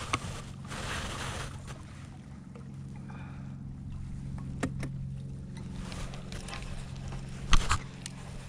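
Steady low hum of an electric trolling motor on an aluminium jon boat, with a few sharp knocks, the loudest one near the end.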